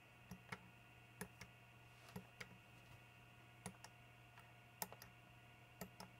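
Small panel push button on a home-built electronic autoharp pressed about six times, roughly a second apart. Each press gives a quick double click, over a faint steady hum.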